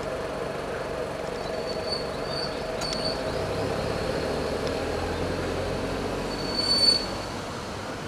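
Steady background rumble of vehicle traffic. A short high squeal comes about two seconds in, and again near the seventh second, where the noise swells briefly.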